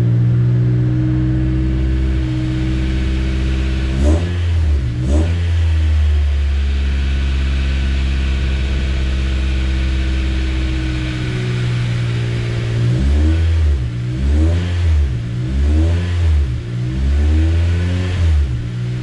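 Honda Civic's K20 four-cylinder engine running just after a cold start. It gives two quick throttle blips about four and five seconds in, runs steadily, then is revved several times in quick succession near the end.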